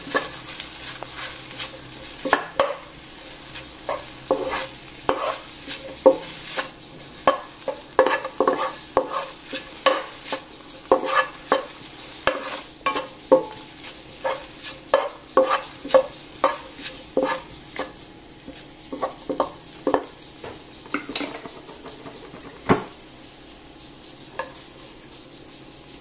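Wooden spatula stirring and scraping scrambled egg and sausage slices around a nonstick wok, a quick run of taps and scrapes over a low sizzle. The strokes thin out to a few single knocks in the last third.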